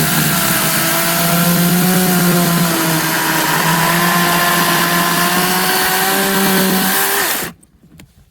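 Teccpo 40-volt cordless electric chainsaw running under load as it cuts through a thick, dry log at the limit of its bar length, its motor whine wavering slightly in pitch. It stops abruptly about seven and a half seconds in.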